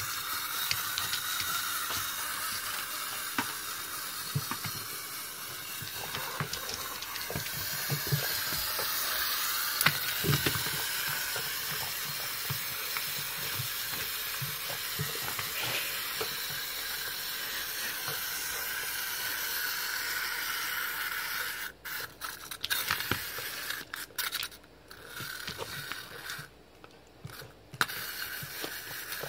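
A puppy's paws patting and scrabbling on a wooden floor, a few soft thumps about a third of the way in, over a steady hiss.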